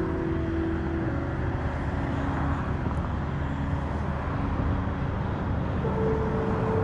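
FPV quadcopter's motors whining in flight, heard from the pilot's position, over steady wind noise on the microphone. The whine changes pitch with throttle and steps up near the end.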